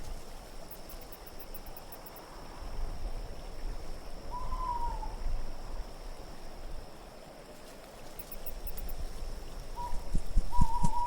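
Designed winter-night ambience: a steady wind-like hiss with low rumbling gusts. A short, slightly falling hoot-like call sounds about four seconds in and again near the end.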